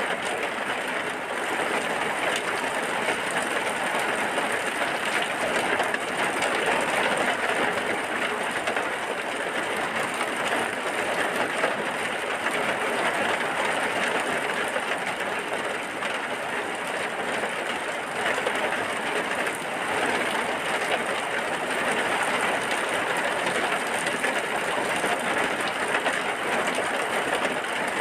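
Steady rain falling: an even, unbroken hiss that holds the same level throughout.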